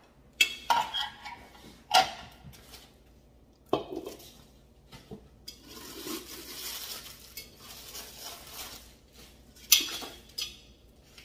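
A glass canister and its metal lid being handled on a countertop: a few sharp clinks and knocks, with a softer rustle in the middle.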